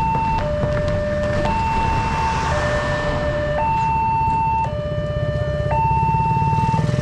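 Railway level-crossing warning alarm sounding its two-tone electronic chime, switching between a high and a low tone about once a second as the barriers come down, the sign that a train is approaching. Motorcycle engines run low underneath.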